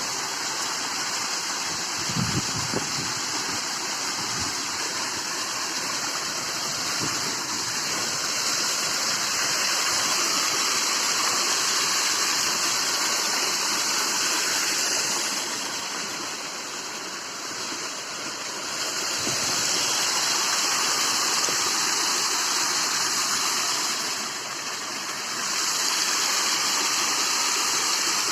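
Small hillside waterfall pouring, a steady rush of falling water that dips quieter twice, in the middle and near the end.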